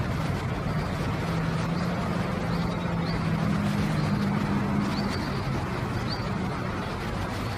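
Lesser whistling ducks giving short, high peeps every second or so over a steady background hiss. A low engine hum swells and fades through the middle.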